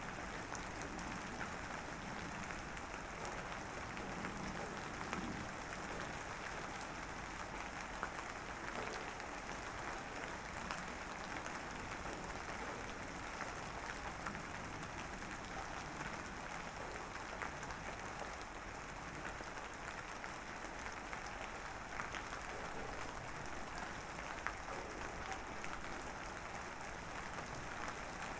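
Light drizzle falling, a steady soft hiss of fine drops with scattered small ticks of individual drops.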